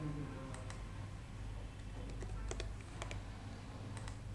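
Irregular clicks of computer keys being pressed, some in quick pairs, as candidate digits are entered into an online Sudoku grid, over a low steady hum.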